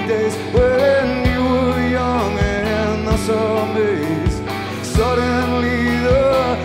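Live rock band playing at full volume: a male lead voice singing long, gliding notes over electric guitars, bass and steady drum hits, amplified through an arena PA.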